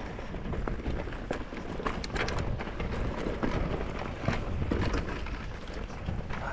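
Norco Sight VLT e-mountain bike riding over a rough dirt trail: tyres crunching on loose ground, with many irregular clicks and knocks from the bike rattling over bumps, over a steady low rumble.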